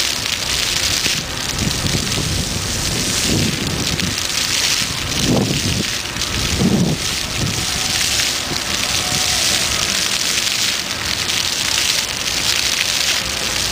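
Splash-pad fountain jets spraying and water splattering onto the wet paving: a steady rushing, spray-like noise. A couple of louder low swells come about five and seven seconds in.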